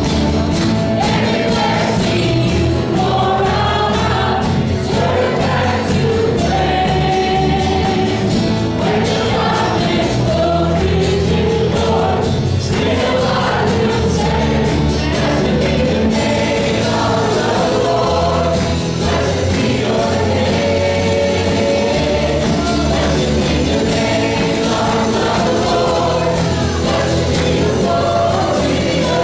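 Worship team singing a gospel-style praise song with full band accompaniment, several voices together over a steady beat.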